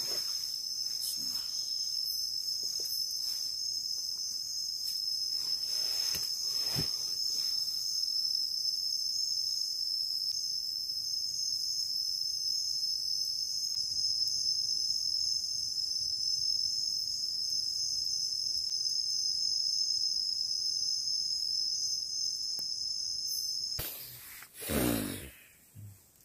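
Crickets chirping in a steady, high-pitched night chorus. It cuts off abruptly near the end, and a short loud noise follows.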